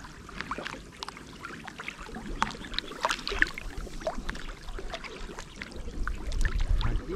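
Water sloshing, with many small, irregular splashes and drips over a low rumble.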